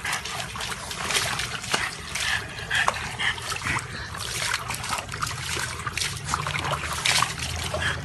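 Water splashing and trickling in irregular surges.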